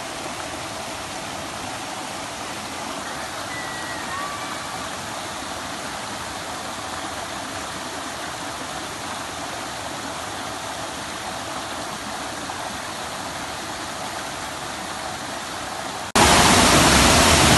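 Waterfall rushing steadily, an even roar of falling water; about 16 seconds in it jumps abruptly much louder, as if heard from much closer to the falls.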